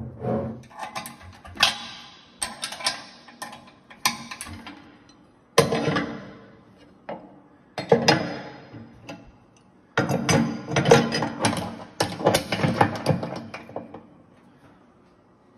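Irregular metal clanks and clinks of bolts, nuts and steel parts being handled as a honey extractor's reel drive is taken apart to replace a noisy bearing.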